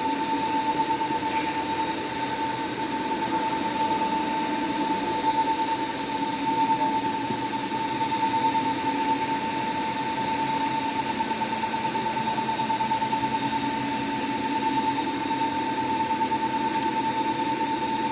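TIG welding arc on 316 stainless steel pipe: a steady hiss with a constant whining tone running through it.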